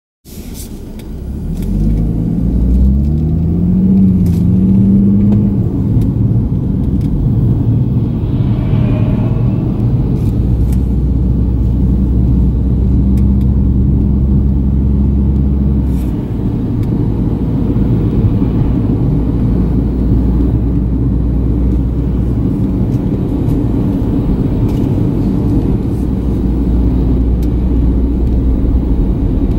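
Nissan V36 Skyline 250GT's VQ25 V6 engine heard from inside the cabin, pulling away with its pitch rising in steps over the first few seconds, then settling into a steady cruising hum over road and tyre noise.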